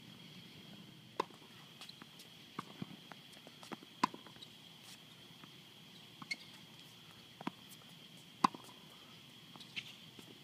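Tennis rally on a hard court: short sharp pops of racket strikes and ball bounces, the two loudest about four seconds in and about eight and a half seconds in, with lighter scuffing footsteps in between.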